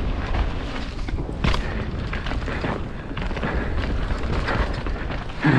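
Mountain bike riding fast down a dirt trail, heard from a camera on the rider: steady wind rumble on the microphone, tyres on dirt and the bike rattling in sharp knocks, the loudest about a second and a half in.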